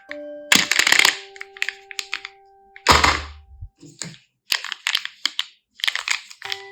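Crinkly packaging being handled and opened in four crackling bursts about a second apart, with scattered small clicks between them.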